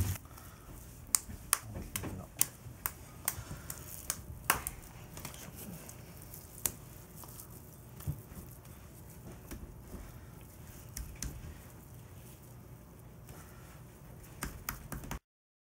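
Hands working raw ground wild boar meat, kneading it and slapping it into patties: irregular sharp wet slaps, about two a second over the first five seconds, then sparser. The sound cuts off shortly before the end.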